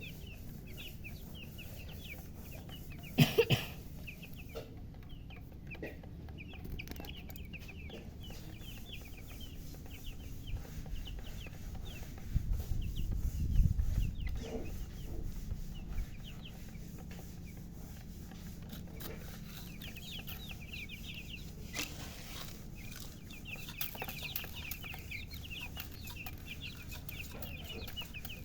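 A group of newly hatched chicks peeping continuously, many short high chirps overlapping. A sharp knock sounds about three seconds in, and a low rumble with a few thumps comes around the middle.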